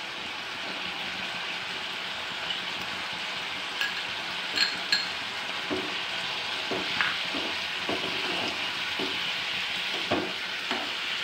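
Drumstick and cashew thoran sizzling in a wide pan with a steady hiss, as crushed coconut mix goes in. A metal spoon gives two ringing clinks a little under halfway through, then knocks and scrapes against the pan about once a second as the coconut is stirred in.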